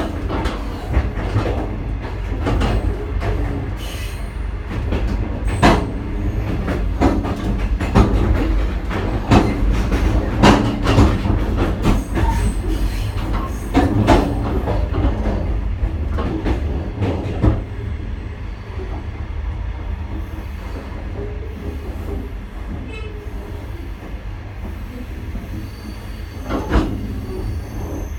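Passenger train moving through a station yard, heard from inside the carriage: a steady low rumble with frequent, irregular wheel clacks over rail joints and switches. After about two-thirds of the way the clacks thin out and the rumble settles.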